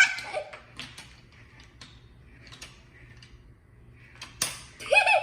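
A child giggling briefly at the start and again near the end, with light scattered taps and clicks between them and one sharp click about four and a half seconds in.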